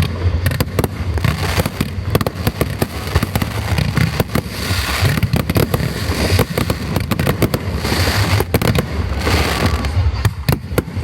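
Fireworks display in a dense, continuous barrage of rapid bangs. Twice there are stretches of sustained crackling, from crackle or glitter shells.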